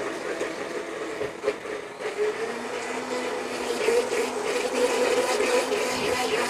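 Vitamix blender motor running on a thick load of herbs and olive oil for a chutney, which the blades are slow to catch. The motor note grows steadier and a little louder about halfway through.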